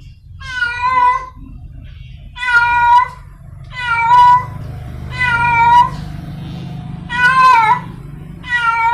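Stray village cat in heat meowing over and over, six drawn-out calls about a second and a half apart, each under a second long: a female calling for a mate.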